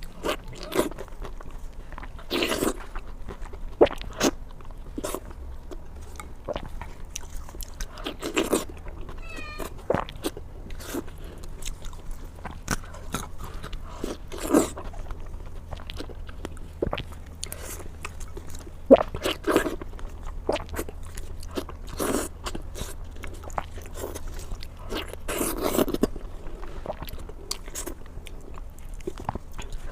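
A person eating into a close microphone: irregular bites and wet chewing, with a few louder, crisper bites.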